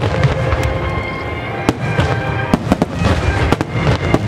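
Aerial firework shells bursting in quick, irregular succession, about a dozen sharp bangs over a continuous deep rumble of booms. Music with held tones plays underneath.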